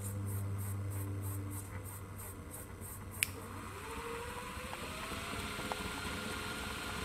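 Brushless electric motor belt-driving an automotive alternator, with a low hum that fades, a sharp click about three seconds in, and then a whine that rises in pitch and levels off as the motor speeds up.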